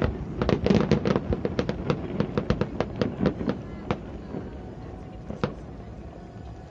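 Fireworks bursting in a rapid run of sharp cracks and bangs that thin out after about four seconds, with one last bang near five and a half seconds in.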